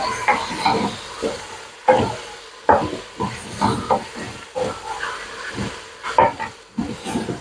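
Stirring beef and potato chunks in a stainless steel pot: irregular scrapes and knocks of the spoon against the pot, over a light frying sizzle.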